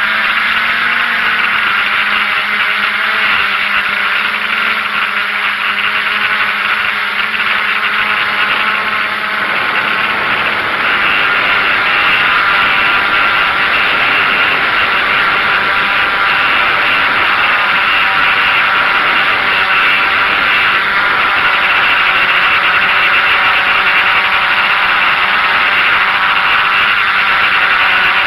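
DJI F550 hexacopter's six brushless motors and propellers buzzing steadily in flight, heard close from the onboard camera. Several motor tones shift in pitch and the sound gets slightly louder about ten seconds in.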